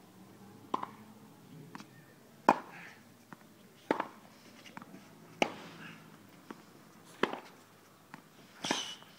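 Tennis racket striking a ball in a rally against a practice backboard: a series of sharp hits about every one and a half seconds, with fainter taps of the ball bouncing between.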